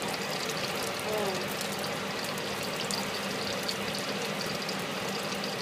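Garlic prawns sizzling in hot oil in a stainless steel wok, a steady crackling fry over a low, even hum.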